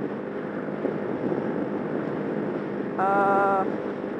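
Motorcycle riding at freeway speed, heard from a helmet-mounted camera: a steady engine drone under wind and road noise. A short, steady pitched tone sounds about three seconds in.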